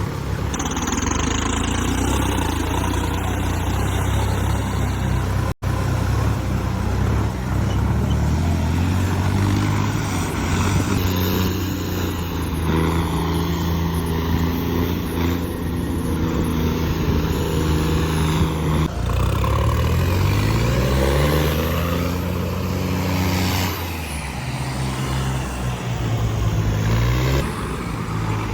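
Heavy diesel machinery engine running steadily, the revs rising and falling about two-thirds of the way through. The sound cuts out for an instant about six seconds in.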